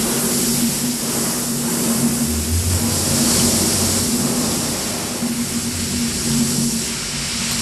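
Several shower heads spraying full force in a tiled shower room: a loud, steady hiss of water with a low droning hum beneath it. The hum deepens from about two to six seconds in.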